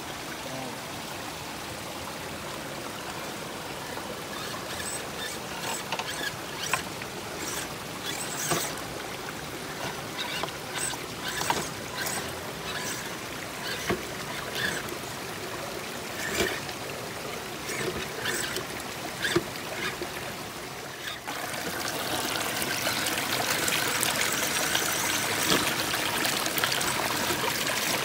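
Shallow rocky creek trickling over stones, with scattered sharp splashes and knocks through the middle as an RC crawler wades through the water. About three-quarters of the way through it changes abruptly to louder, fuller running water.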